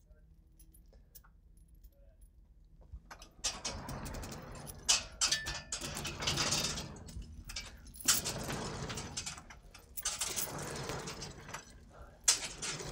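The hand chain of a chain-operated overhead door rattling and clinking as it is pulled hand over hand to haul the door up. It starts about three seconds in and goes in uneven bursts with short pauses.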